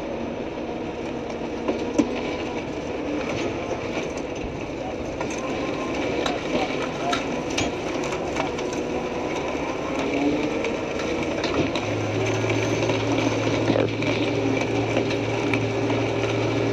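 Heavy tow truck's diesel engine running, heard from inside the cab as the truck pulls forward slowly, with small rattles and clicks. A low steady hum comes in about twelve seconds in.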